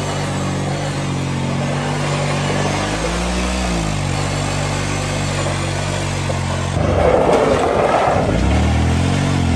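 Kawasaki Prairie 650 ATV's V-twin engine held at high revs during a burnout, its rear tires spinning on a gravelly pavement surface. The pitch dips and climbs again about three seconds in, and the sound turns louder and rougher from about seven seconds in as the quad spins around throwing dust.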